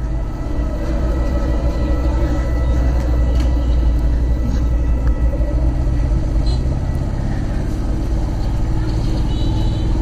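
Yamaha motorcycle ridden slowly: a steady low rumble of its engine mixed with wind on the microphone.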